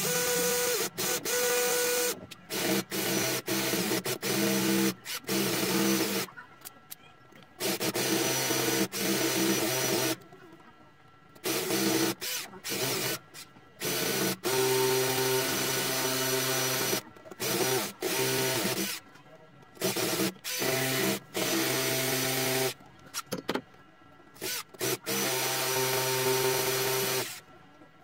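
Cordless drill boring into a concrete wall, the trigger pulled in short bursts and then in several longer runs of several seconds each, with stops between them; the drilling ends shortly before the close.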